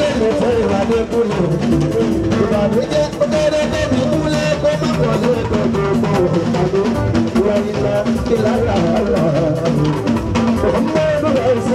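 Loud Fuji band music: dense drumming with a singing voice.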